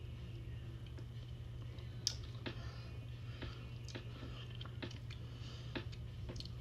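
Someone eating a Blizzard ice cream: scattered small clicks and chewing, with one sharper click about two seconds in, over a steady low hum.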